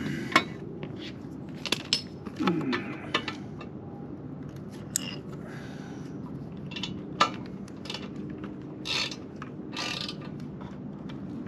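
Plastic wiring connectors and cables handled by hand while the O2 sensor leads are plugged back in: scattered sharp clicks and taps, with a couple of short scraping rustles near the end.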